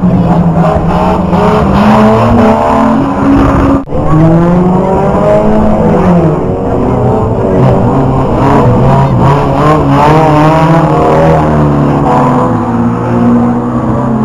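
Several rear-wheel-drive banger racing cars running hard around the track, their engines overlapping and rising and falling in pitch as they rev through the bend. The sound cuts out briefly about four seconds in.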